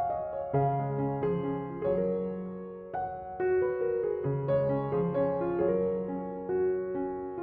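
Background piano music, a gentle melody of held notes changing about every half second to second.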